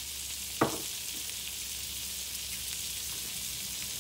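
Diced onions and sweet peppers frying in melted butter in a cast-iron skillet, a steady sizzle throughout, with one sharp knock about half a second in.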